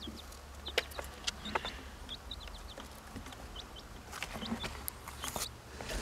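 Young chickens making short, high chirps every second or so, with scattered light clicks and taps.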